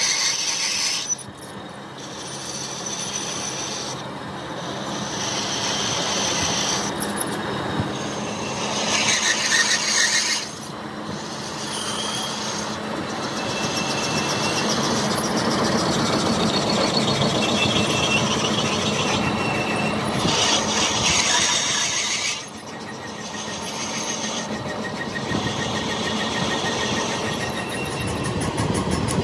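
Machine tools working steel crankshaft parts, a steady mechanical din with high squealing tones. It changes abruptly about 1, 10 and 22 seconds in as one machining operation gives way to another.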